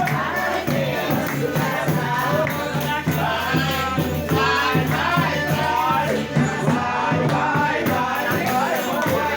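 A group of people singing a São João folk song together, with hand percussion such as a tambourine shaking along in a steady rhythm.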